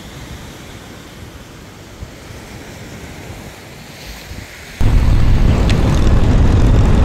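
Ocean surf washing over a rocky shore as an even hiss. About five seconds in it cuts abruptly to a much louder rush of wind on the microphone and the engine of a Royal Enfield 650 parallel-twin motorcycle, heard from the rider's seat at road speed.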